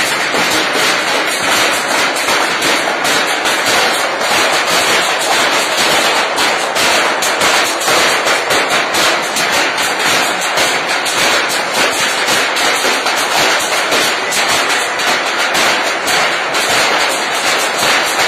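Many people beating with sticks at once, a loud, continuous clatter of fast, overlapping strikes that keeps up without a break.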